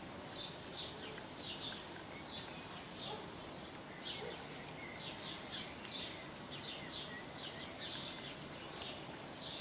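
Outdoor ambience: a faint, steady haze of noise with short, high chirps repeating irregularly, about two or three a second.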